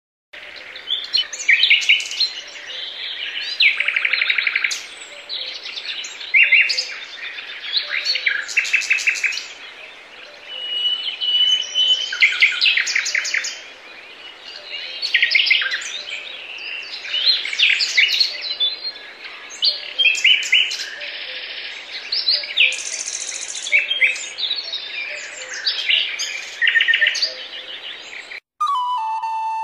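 Songbirds singing, a dense run of overlapping trills, chirps and whistles over a faint steady background. The birdsong cuts off abruptly near the end and music begins.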